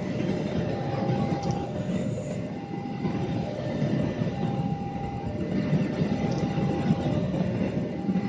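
Train passing at close range, a steady heavy rail rumble with wheels running over the track. Over it a steady tone sounds on and off, about once every second and a half.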